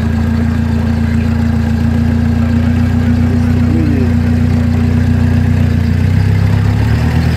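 Engine of a Niva-Marsh swamp vehicle running steadily under load at close range as the big low-pressure tyres work through the bog. The engine note changes about six seconds in.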